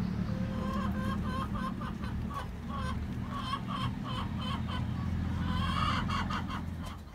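A flock of hens clucking, many short calls a second, over a steady low hum.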